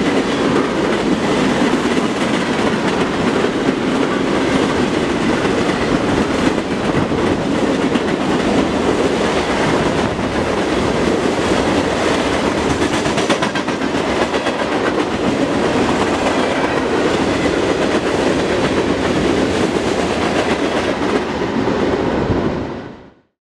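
Union Pacific freight cars rolling past on the rails, a steady loud rolling noise of wheels and car bodies that fades out quickly near the end as the train's tail passes.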